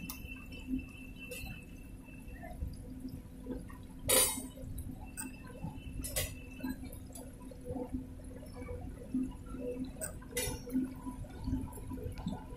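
Floodwater running over a railway track, a low steady rush with a faint hum beneath. Sharp clicks and drips break through it, the loudest about four seconds in and others about six and ten seconds in.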